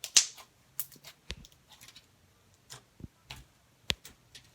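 Homemade slime being squeezed and poked by hand, giving irregular sharp clicks and pops, about a dozen, the loudest just after the start and near the end.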